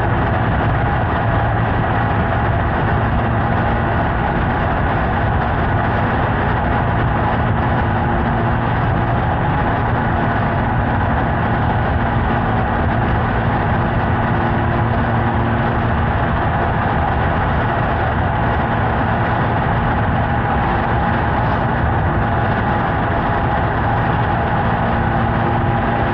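Honda Hornet 900 (CB900F) motorcycle's inline-four engine running at a steady, unchanging pace.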